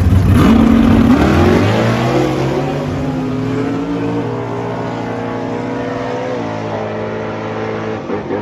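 A drag car launching hard from the starting line and accelerating away down the strip at full throttle. The engine note climbs steadily and drops in pitch about four and six seconds in as it shifts gears, growing fainter as the car pulls away.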